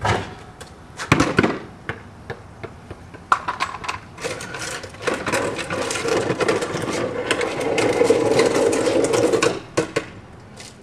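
Knocks and a clatter from a pole-mounted basketball hoop's rim and backboard as a ball is dunked, twice in quick succession. Then a continuous noise that slowly gets louder and cuts off shortly before the end.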